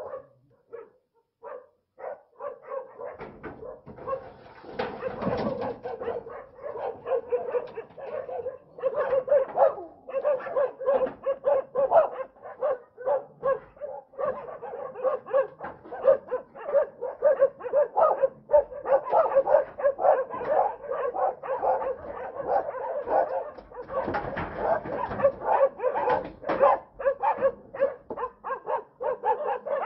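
Continuous rapid dog barking, several barks a second without a break, with a couple of louder noisy stretches about four and twenty-four seconds in.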